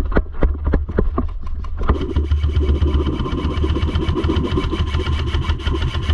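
Quick footsteps, then from about two seconds in an airsoft rifle firing on full auto: a long, rapid, even stream of shots over a buzzing motor sound that stops abruptly near the end.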